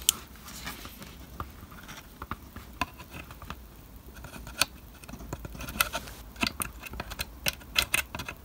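Small sharp clicks and taps of metal needle-nose pliers gripping and tugging a thin wire through a tight hole in a card-and-plastic model building wall, with handling noise of the model; the clicks come thicker in the second half.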